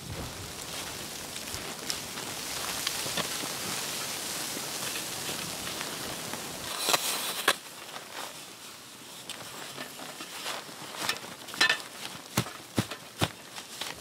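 A steady rustling hiss for the first half, then sharp knocks as tent stakes are hammered into the snow: two close together about seven seconds in, and a quicker run of about five near the end.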